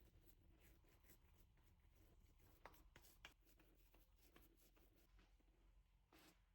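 Near silence with faint, scattered light clicks and rustles of small handling.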